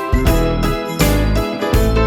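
Background music: pitched instrumental notes over a steady beat and bass.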